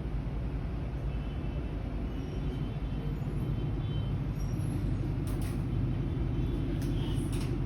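Steady low rumble of road vehicles, with a few brief high squeaks in the second half.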